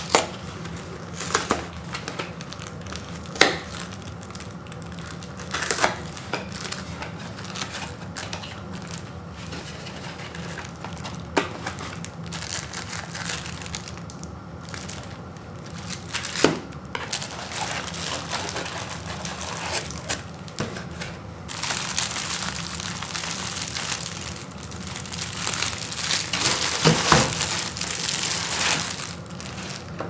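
A cardboard popcorn carton handled and opened by hand, with scattered sharp taps, tears and scrapes. About two-thirds in, this gives way to a steady crinkling of the clear plastic wrap on the microwave popcorn bags as they are pulled out and handled.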